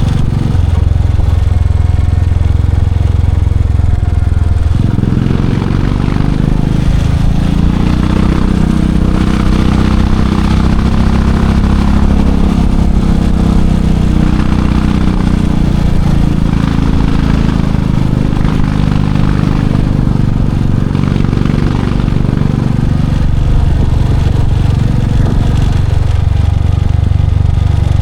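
Royal Enfield Classic 500's single-cylinder engine running through its exhaust on the move. The engine note rises about five seconds in and keeps changing with the throttle.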